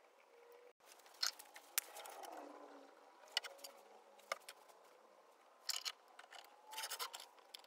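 Hand-handling noises on a wooden workbench: scattered sharp taps, clicks and light scrapes as a glue bottle and a steel C-clamp are picked up, set down and fitted, with a quick run of metal clinks near the end.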